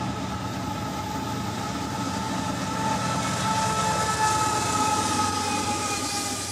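Canadian Pacific diesel freight train passing close by: the locomotive and then loaded hopper cars rumble past on the rails. Two steady high-pitched tones ring above the rumble the whole time.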